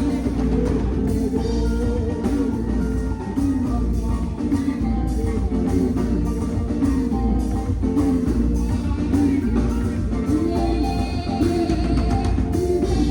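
Band music with guitar and drums under a lead melody line that wanders in pitch.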